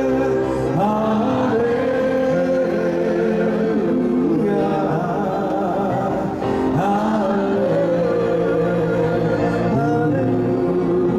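A man singing a worship song over instrumental backing, with held notes that waver in vibrato.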